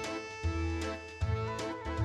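Background music: plucked-string instrumental with a steady beat and bass line.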